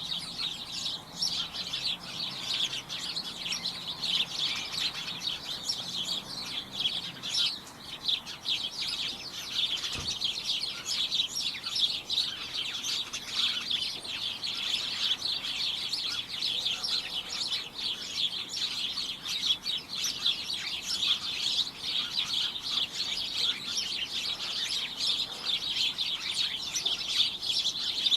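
A flock of small birds chirping continuously, many quick overlapping chirps in a dense, unbroken chatter.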